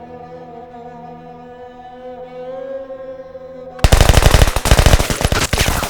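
Film soundtrack of held, sustained music notes, cut off about four seconds in by a sudden burst of loud, rapid automatic gunfire.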